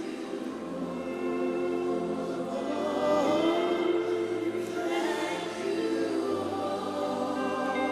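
Gospel worship music: a choir singing long held chords over a low sustained bass note that shifts every few seconds.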